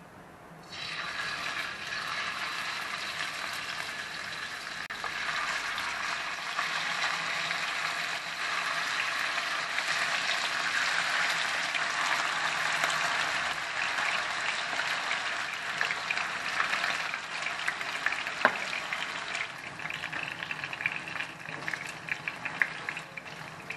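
Chicken pieces sizzling in hot oil in a frying pan, the sizzle starting suddenly about a second in as the chicken goes into the pan. Near the end, sharp clicks of metal tongs against the pan as pieces are turned and lifted out.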